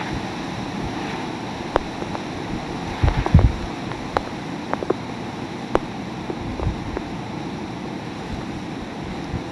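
Hurricane wind and heavy rain rushing steadily, with the wind buffeting the microphone in a cluster of low thumps about three seconds in. Scattered sharp clicks sound through the noise.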